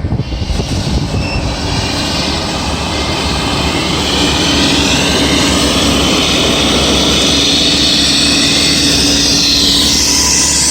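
Heavy road-construction machinery running loud and steady, swelling about four seconds in, with a high whine that sweeps up and down near the end.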